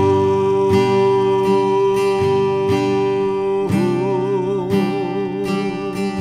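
Acoustic guitar strummed in a steady rhythm under a long held sung note; about halfway through, the voice moves to a wavering note with vibrato.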